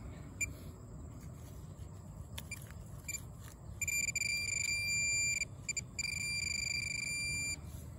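Handheld metal-detecting pinpointer probing a dug hole: a few short beeps, then two long, steady high-pitched tones about a second and a half each, the alert that it is right over a metal target in the soil.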